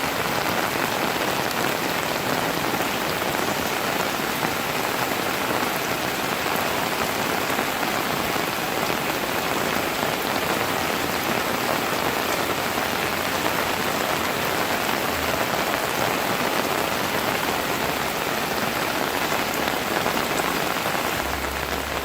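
Heavy rain falling steadily, with rainwater pouring off the channels of roof sheets.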